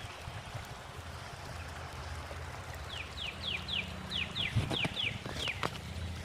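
A small bird calling: a quick series of about eight short, high, downward-slurred notes, about three a second, starting about halfway through, over a steady low rumble.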